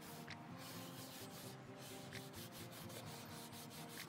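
Cheesecloth rubbing an oil-and-beeswax finish into a bocote wood box, a faint soft scrubbing of cloth on wood in back-and-forth strokes.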